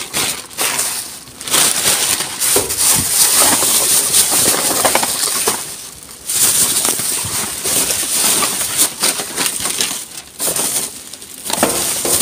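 Thin plastic rubbish bags rustling and crinkling as they are pulled open and rummaged through, in irregular loud bursts with short pauses.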